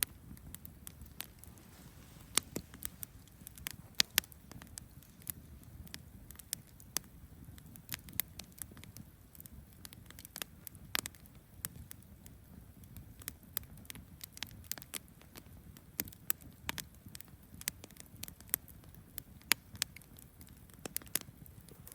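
Wood campfire crackling, with irregular sharp pops and snaps over a faint low rush of flames.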